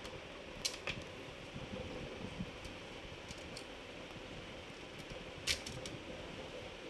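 Scattered light clicks and taps as a laptop motherboard is worked loose and lifted out of its plastic chassis, the sharpest about five and a half seconds in, over a steady faint hum.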